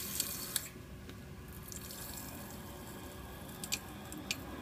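Water hissing through a freshly opened brass ball valve into the new PEX line of a hot water heating system, loud at first and fading within half a second, then a faint steady hiss resumes with two sharp ticks near the end.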